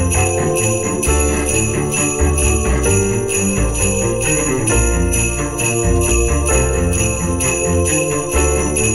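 Upbeat Christmas music with sleigh bells jingling on a steady beat over a moving bass line and melody.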